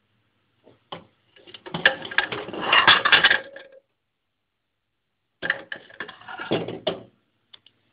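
Clattering and scraping of a covered microwave dish being handled and lifted out of the microwave, in two bursts of knocks and scrapes with a pause between.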